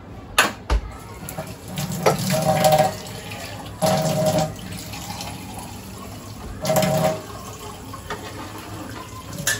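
Water running from a kitchen tap into a sink, with three louder bursts about two, four and seven seconds in.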